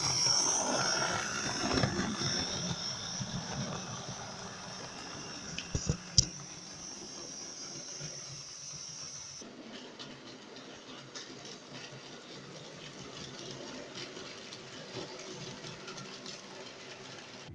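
Model railway trains running on the layout's track: a steady rushing, whirring noise of motors and wheels on rail, with a few sharp clicks about six seconds in. It drops to a quieter, duller running noise about halfway through.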